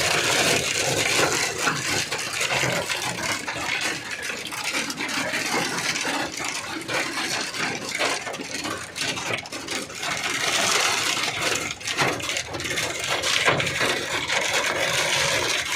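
Hailstones and heavy rain pelting a car's body and windows: a dense, continuous clatter of countless small hard impacts.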